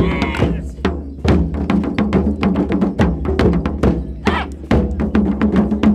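Border Morris dance band music with a drum beat, and the dancers' wooden sticks clacking together in time, many sharp knocks a second.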